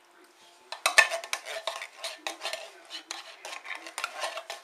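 A metal spoon stirring a thick, creamy mixture of noodles, cheese and cream of chicken soup in a metal pan, scraping and clinking against the pan in quick strokes, about four a second, starting about a second in.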